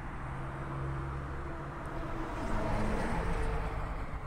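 Road traffic passing close by: a car and then a box truck drive past, engine and tyre noise swelling to a peak about three seconds in and then fading, the engine pitch dropping as the truck goes by.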